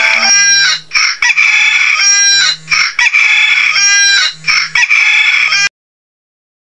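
Smartphone alarm playing a rooster-crowing ringtone, the same crow repeating about once a second, then cutting off suddenly near the end.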